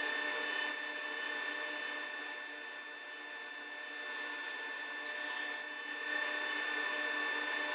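Powermatic table saw running with a steady whine while its blade cuts through a stack of thin wood strips. The rasping noise of the cut rises and falls slightly as the stack is fed.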